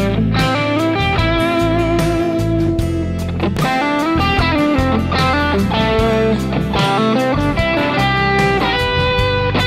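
Electric guitar through a Joyo overdrive pedal, recorded direct from a Mooer GE200 amp and cabinet simulator, playing a run of picked notes and chords over sustained low notes. A Celestion Blue cabinet impulse response is loaded for most of it.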